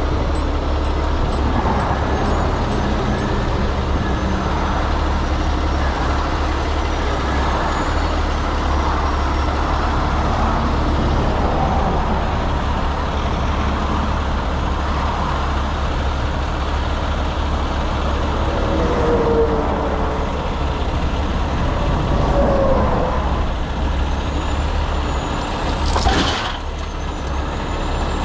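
Heavy truck diesel engine running steadily at a constant low rumble, with a brief sharp hiss of air near the end.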